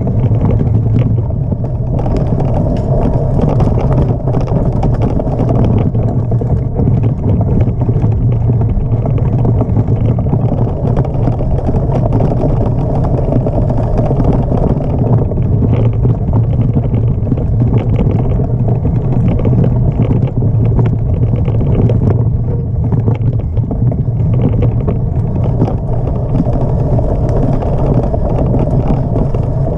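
Mountain bike ridden fast on a forest dirt trail, heard through a bike-mounted camera: a steady loud rumble of tyres on the ground and the frame rattling over bumps, mixed with wind on the microphone.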